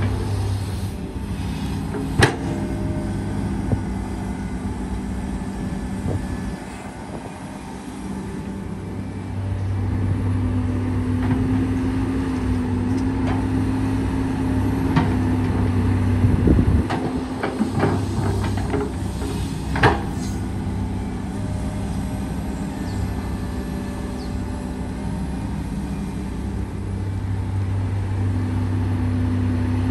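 Komatsu PC200 hydraulic excavator's diesel engine running steadily under working load, easing off for a few seconds and then picking up again. Sharp knocks cut through it, loudest about two seconds in and about twenty seconds in, with a run of clicks and thuds a few seconds before the second.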